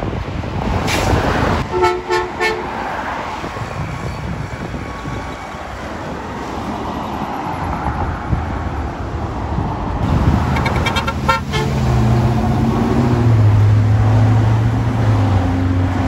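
Road traffic with short vehicle horn toots about two seconds in and a quicker run of horn toots around eleven seconds. Near the end, a heavy garbage truck's engine drone grows louder as it passes close.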